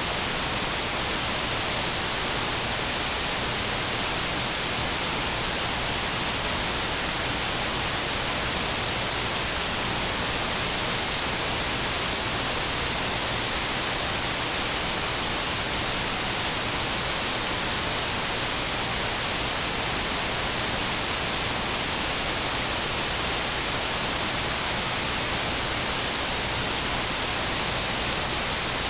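Steady, even static hiss like white noise, with no changes or events and a faint low hum underneath.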